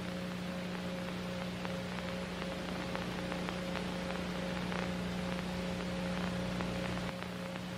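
Steady electrical hum over hiss and faint crackling static, like the noise of a degraded analog TV broadcast on a stand-by card. The deepest rumble under the hum drops away about seven seconds in.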